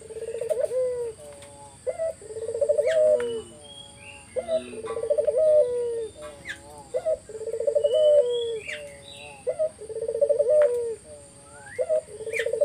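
A puter turtle dove (domestic collared dove) calling vigorously: a rolling, trilled coo ending in a drawn-out note, repeated about every one and a half to two seconds. Smaller birds chirp faintly between the coos.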